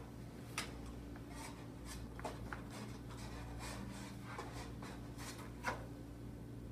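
Handling sounds as a banner roller is fitted into a retractable banner stand's metal base: the banner sheet rubbing and rustling against the parts, with two sharper clicks, about half a second in and near the end, and a few fainter ones between. A steady low hum runs underneath.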